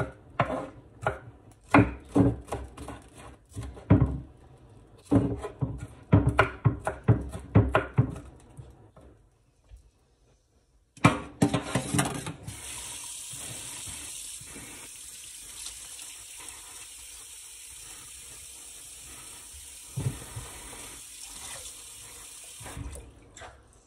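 Knife chopping bell pepper on a wooden cutting board in quick runs of strokes. After a short pause, a kitchen tap runs steadily into the sink for about ten seconds, then stops.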